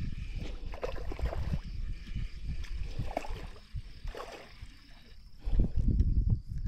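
Water sloshing and gurgling, with an uneven low rumble on the microphone that swells loudest about five and a half seconds in.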